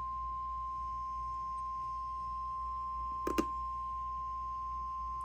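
NOAA Weather Radio 1050 Hz warning alarm tone: one steady, high pure tone, the signal that a warning broadcast is about to follow. Two quick clicks sound over it a little past three seconds in.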